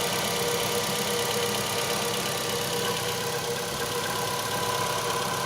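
Ravon R3's four-cylinder petrol engine idling steadily on a cold start, heard with the hood open. The alternator belt runs with no whistle, the belt and pulley grooves freshly cleaned of embedded grit.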